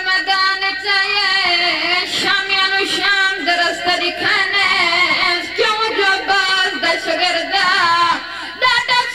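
Young boys singing a devotional recitation into a microphone in a high voice, holding long notes with a wavering pitch, with a short break about eight seconds in.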